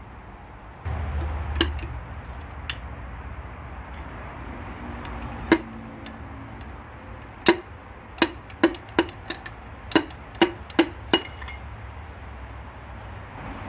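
A series of sharp taps, about a dozen, coming quickly in the second half, each with a short ring: a piston and connecting rod being knocked out of a Honda B20 engine block's cylinder bore. A low steady hum runs underneath from about a second in.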